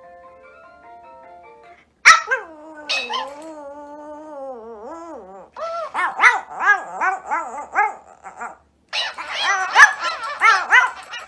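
Small white Pomeranian-type dog howling: a long wavering howl starts suddenly about two seconds in, then two runs of quick rising-and-falling yowls and yips, about six a second. A soft melodic tune with held notes plays faintly before the howl.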